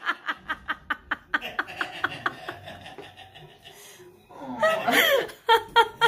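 A woman laughing hard in rapid, breathy pulses of about five a second that fade over the first few seconds. About four and a half seconds in comes a fresh, louder burst of laughter, then more short pulses.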